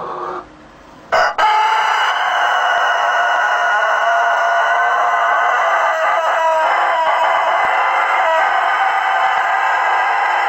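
A rooster crowing one very long, unbroken note. It starts about a second in, right after a sharp click, and holds steady at an even loudness for more than nine seconds.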